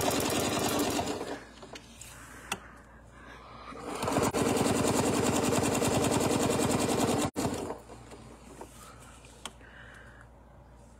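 Domestic sewing machine stitching at speed through quilted fabric. It stops about a second in, then runs again for about three and a half seconds and cuts off suddenly. A few light clicks fall in the pauses.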